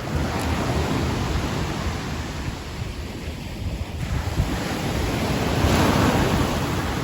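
Sea waves washing onto the shore in a continuous surf, one wave swelling loudest about six seconds in.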